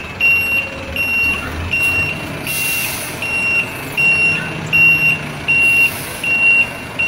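Truck backup alarm beeping steadily, a short high beep about every 0.7 seconds, over the low running of heavy truck engines.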